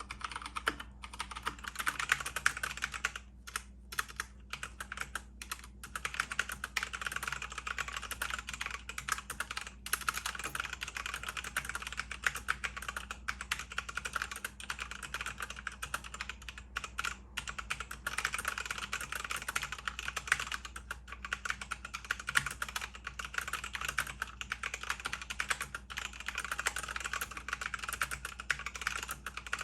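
Steady fast typing on a mechanical keyboard with tactile brown key switches, a dense run of key clicks with a few brief pauses.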